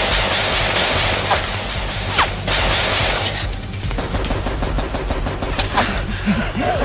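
Rapid automatic rifle fire from an action-film soundtrack over a music score, dense for the first three seconds or so and then falling away to a few scattered shots.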